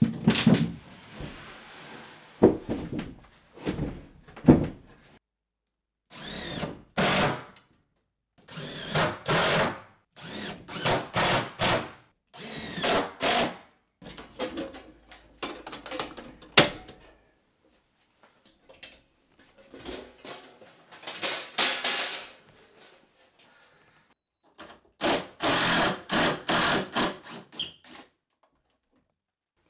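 Cordless drill run in repeated short bursts, with knocks and thumps of wood and tools being handled. A heavy thump comes right at the start.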